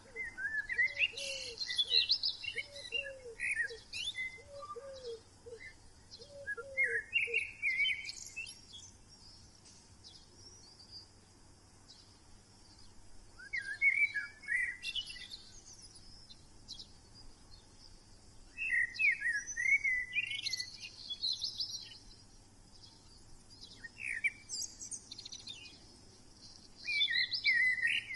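Forest birds chirping and twittering in bursts every few seconds. In the first seven seconds a lower call repeats about eight short notes.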